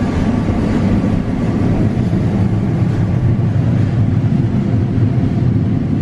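Combine harvester running steadily under load, its header cutting and feeding tall soybeans, a loud even low rumble with a rushing mechanical noise over it.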